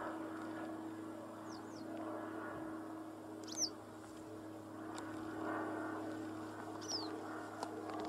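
Yellow wagtail giving short, thin, high calls that fall in pitch: a quick pair about one and a half seconds in, the loudest about halfway, another near the end. A steady low hum runs underneath.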